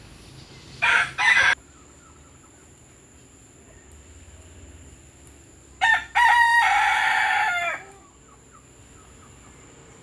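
A rooster crowing: a short two-part call about a second in, then a full crow of about two seconds in the second half that falls away at its end.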